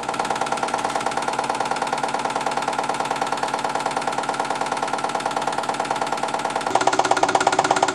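Bing 130-273 vintage toy steam engine running on live steam, a rapid even chuffing beat with a steady ringing tone, together with the running of the belt-driven model workshop machines it powers. The sound gets louder about a second before the end.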